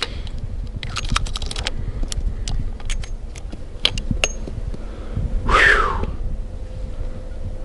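Chiappa Rhino .357 Magnum revolver being handled, with light metallic clicks and rattles of the action and cartridges: a quick run of them about a second in, then scattered single clicks. A short, louder whoosh comes a little past five seconds.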